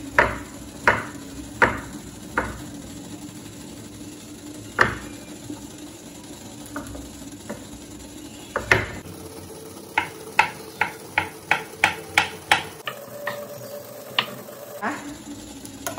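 Kitchen knife cutting a block of tempeh on a wooden cutting board, the blade knocking on the board with each cut. A few separate chops come in the first half, then a quick run of about ten chops, some three a second, a little past the middle, over a faint steady hum.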